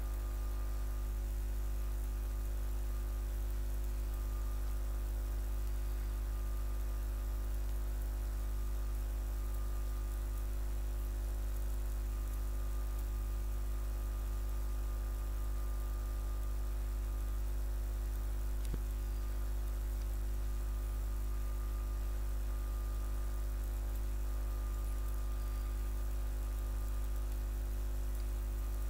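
Steady low electrical hum with a few fixed higher tones and a faint hiss, the recording's background noise. A single faint click comes about two-thirds of the way through.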